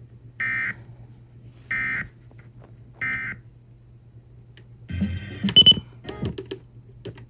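NOAA Weather Radio EAS end-of-message data bursts: three short, identical buzzy electronic bursts about 1.3 seconds apart, marking the end of the severe thunderstorm warning. About five seconds in, a cluster of loud clicks and crackle follows, all over a low steady hum.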